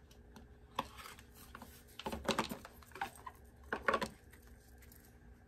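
Hands handling an oracle card deck and its cardboard box: scattered light clicks, taps and short rustles as the box is opened and the cards are taken out.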